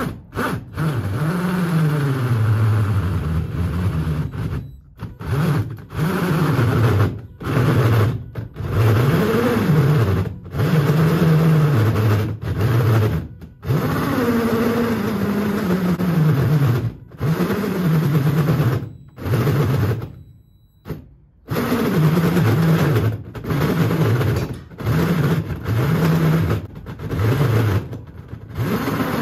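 Cordless drill driving a hole saw through a bus's side skirt panel, run in a string of short bursts with brief stops, its motor pitch sagging and climbing back as it bogs under load. The cutter is labouring and getting hot enough that the bit is likely smoking.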